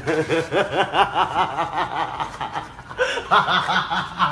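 Men laughing in quick rhythmic giggles and chuckles; the laughter eases off briefly about two and a half seconds in and then picks up again.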